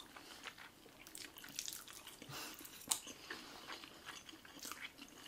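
Faint, close-miked chewing and wet mouth sounds of people eating saucy spaghetti and fried chicken, with scattered soft clicks and smacks; one sharper click about three seconds in.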